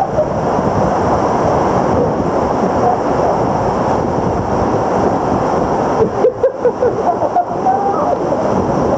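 Steady rush of a waterfall pouring into water, heard up close, with choppier splashing and gurgling from about six seconds in.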